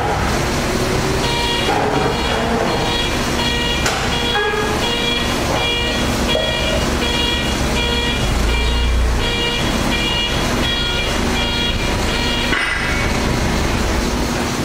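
Steady loud machinery noise with a low hum, overlaid by a high electronic beep repeating about twice a second that stops near the end.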